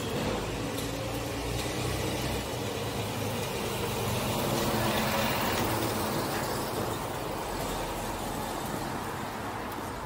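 Street traffic with a heavy vehicle's engine running as it passes close by, loudest about halfway through, over steady road noise.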